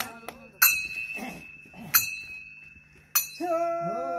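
Three sharp metallic strikes about a second and a quarter apart, each leaving a bright bell-like ring. Near the end a voice starts singing a long held note.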